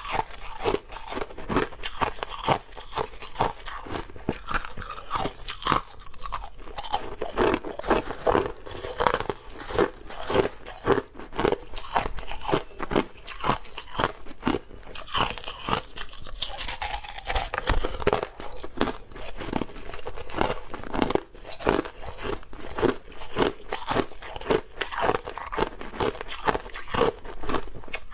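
Close-up crunching of clear, hard crushed ice being bitten and chewed, a rapid run of sharp crunches, several a second.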